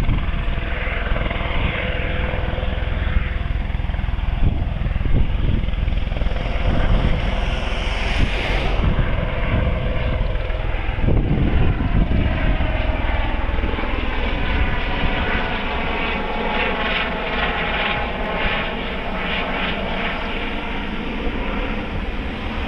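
Airbus H130 helicopter flying overhead with a Bambi bucket slung beneath, its turbine engine and rotor running steadily. In the second half the sound takes on a swirling, phasing whoosh as the helicopter moves across the sky.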